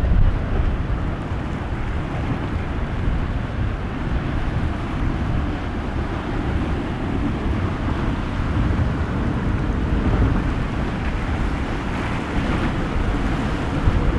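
Wind rumbling steadily on the microphone over the wash of ocean waves and surf.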